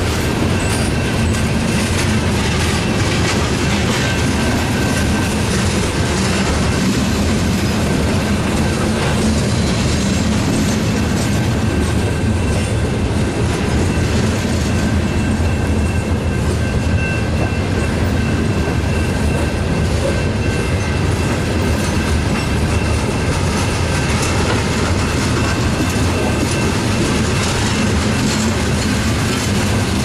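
Loaded coal cars of a freight train rolling steadily past at close range: a continuous low rumble of steel wheels on rail, with irregular clicking and clacking over the rail joints.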